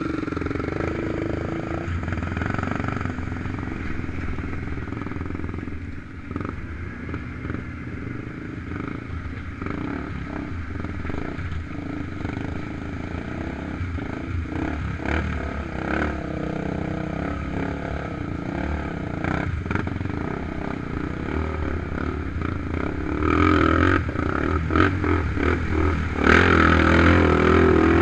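ATV engines running on a rough trail ride, with the steady engine note broken by scattered knocks and clatter from the machines jolting over the ground. It gets louder about five seconds before the end as the throttle comes up.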